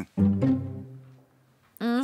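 Background music: a brief low string phrase of one or two notes that fades away within about a second.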